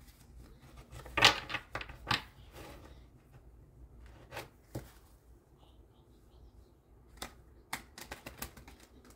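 Tarot or oracle cards being shuffled and handled: bursts of light, quick clicking and snapping, densest about a second in and again near the end.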